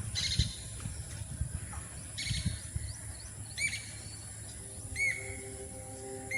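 A bird calling in short, repeated arching chirps over a steady high insect whine, with a few low knocks in the first couple of seconds.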